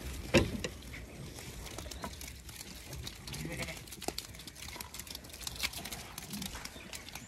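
A flock of Zwartbles sheep jostling and walking out through a muddy race: shuffling hooves and brushing fleece, with a few short low bleats. A sharp knock about half a second in is the loudest sound.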